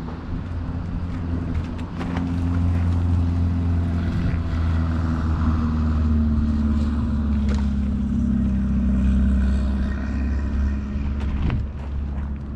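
An engine running steadily with a low hum that swells a little midway and eases off near the end, with a few scattered knocks.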